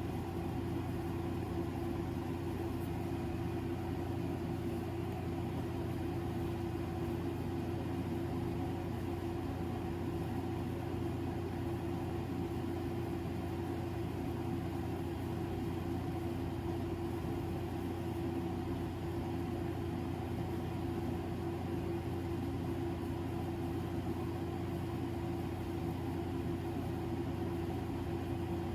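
Room fan of the air conditioner running with a steady hum and a constant motor tone.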